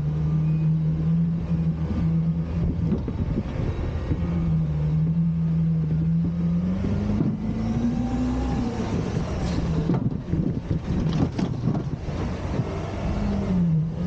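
Garbage truck engine running with a steady hum that briefly revs up in pitch and falls back about seven to eight seconds in. A few sharp knocks come around ten to twelve seconds in.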